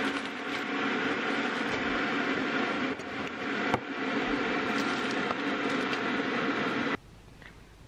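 Steady hum of a kitchen appliance running, which cuts off abruptly about seven seconds in; a single sharp click a little before halfway.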